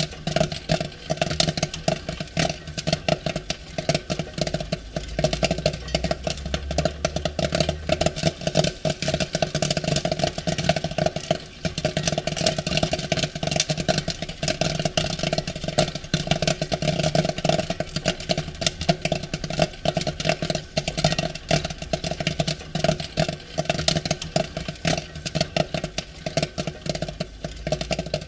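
Popcorn popping at full pace: a dense, unbroken stream of sharp pops over a steady low hum.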